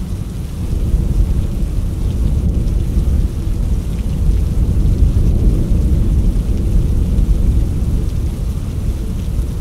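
Rainstorm: a steady, loud low rumble with rain, growing louder about a second in.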